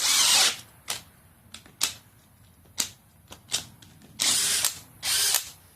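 Cordless brushless hammer drill run in three short trigger bursts, about half a second each, at the start and twice near the end, with single sharp clicks in between.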